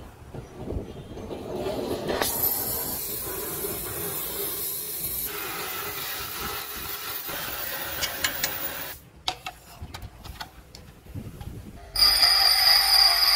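Gas cutting torch hissing steadily as its flame works on the steel of a truck rim; it starts about two seconds in and stops about nine seconds in. Near the end a bench grinder starts abruptly and runs loud with a steady high whine.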